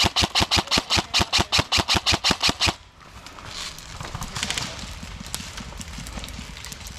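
An airsoft gun firing a sustained full-auto burst of sharp cracks, about seven a second, that stops abruptly almost three seconds in. Fainter scattered ticks and rustling follow.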